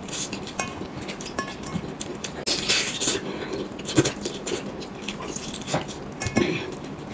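Close-miked eating of a braised chicken drumstick: chewing and lip-smacking, with irregular wet clicks and smacks as the meat is bitten and pulled off the bone.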